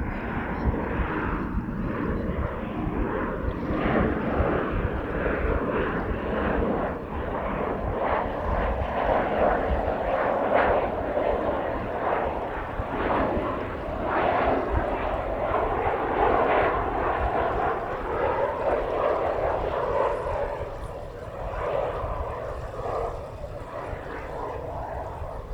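Jet aircraft engine noise: a loud, wavering rush that eases off after about twenty seconds as the aircraft moves away. There is heavy low rumble in the first few seconds.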